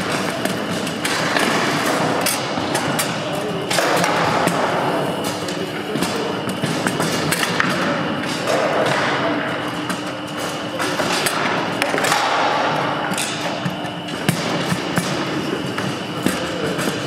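Foosball game in play: many sharp clacks and knocks as the ball is struck by the players' figures and hits the table, with the rods banging. Beneath them is a murmur of voices in a large hall.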